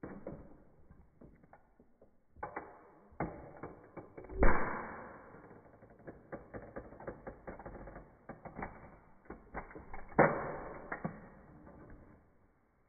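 A toy model car's body creaking and cracking as a high-heeled shoe presses down on it: a string of irregular snaps and creaks, with the two loudest cracks about four and a half seconds and ten seconds in.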